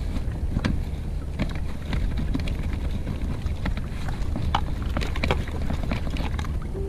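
Wind rumbling on the microphone, with a few scattered light clicks and knocks from a hoop crab net and its line being handled.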